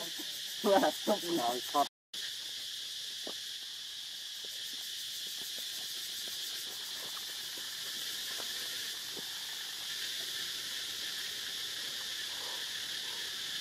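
A steady, high-pitched chorus of insects buzzing. About a second in there is a brief run of loud pitched cries or voices, and just after that the sound cuts out for a moment.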